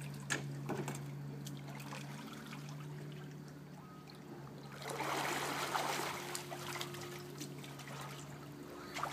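Pool water sloshing and splashing as a child moves and swims through it, with a louder stretch of splashing about five seconds in.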